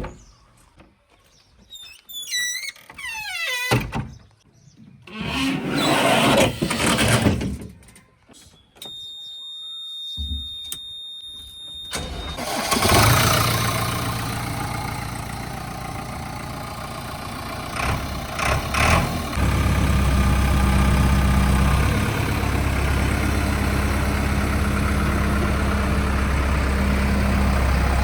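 A JCB 3DX backhoe loader's diesel engine starts about twelve seconds in and keeps running, getting louder and heavier about twenty seconds in. It follows several short, varied sounds, including falling whistle-like glides and a steady high beep.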